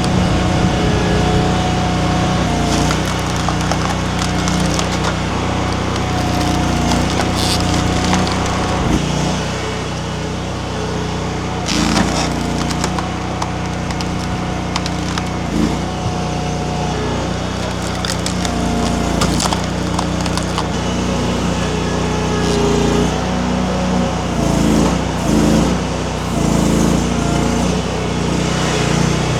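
A mini skid steer's engine runs steadily as a hydraulic wood-splitter attachment forces through large, very hard pecan rounds. The wood cracks and splinters under it, with several sharp cracks, the loudest about twelve seconds in.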